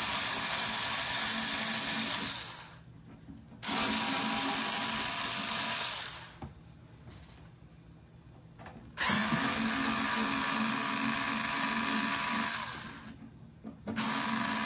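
Pen-style cordless electric screwdriver running in four bursts of a few seconds each, backing long case screws out of a computer's rear panel. It makes a steady motor whine that dies away at the end of each burst, and the third burst is the longest.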